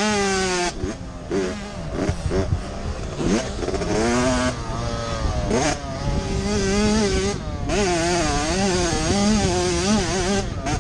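Small motocross bike engine revving hard as the rider races, its pitch climbing under throttle and dropping off again several times, then wavering up and down over rough ground, heard from the rider's helmet with a steady rush of air noise underneath.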